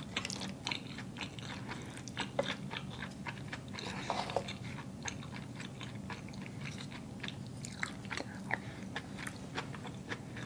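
Close-miked chewing and wet mouth sounds of someone eating saucy spaghetti, with many small scattered clicks.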